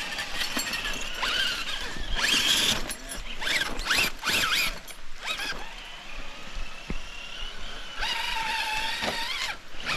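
Radio-controlled rock crawlers' electric motors and gears whining under load on a steep climb, their pitch rising and falling in bursts as the throttle is worked.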